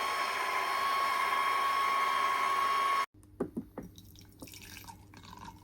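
Electric juicer running steadily, its motor giving a constant whine as bitter melon is fed through, with liquid sounds. It cuts off abruptly about three seconds in, leaving faint scattered clicks and knocks.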